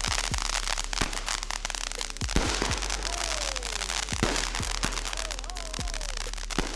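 Fireworks going off: continuous dense crackling with several deep booms, and a few falling whistling tones about three seconds in and near the end.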